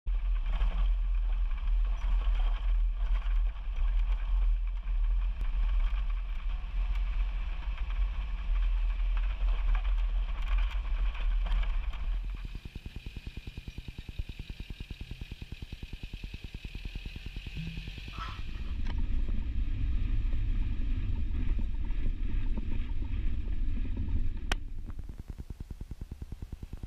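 A heavy camper truck's engine running as it drives a desert gravel track. The deep rumble is loudest through the first half, drops off about halfway, then swells again, with a single sharp click near the end.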